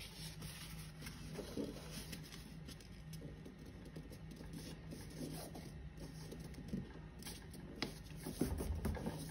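Faint rustling and creasing of a sheet of A4 paper being folded by hand, its corner brought down to the edge and pressed flat, with a few light taps and rubs, over a faint steady low hum.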